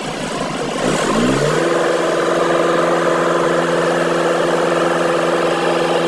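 Dump truck's diesel engine revving up about a second in, then holding a steady higher speed while its body is tipped to unload asphalt.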